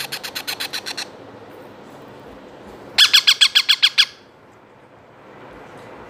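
Two-month-old ringneck parrot chicks giving rapid, repeated squawking calls, the food-begging calls of hand-fed chicks: a quick burst of about a second at the start and a second, louder burst about three seconds in.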